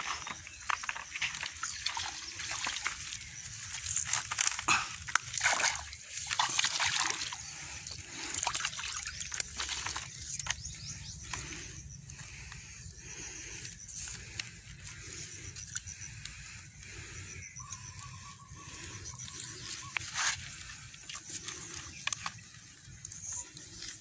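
Splashing in shallow muddy water, with irregular rustling, scuffing and clattering as a struggling waterbird is caught and handled against sticks and dry reeds. The noise is busiest about four to seven seconds in.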